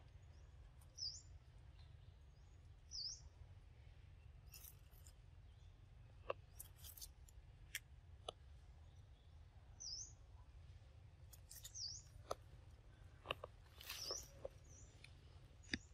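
A wild bird repeating a short high chirp that dips and rises in pitch, every few seconds, over quiet forest background, with scattered soft clicks and rustles of leaf litter as a macaque handles a grass stem and moves about.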